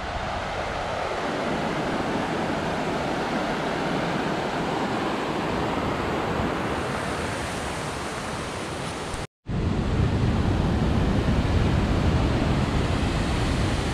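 Steady rush of fast water through a rocky gorge. A brief dropout about nine seconds in; after it the rush is louder, with more low rumble.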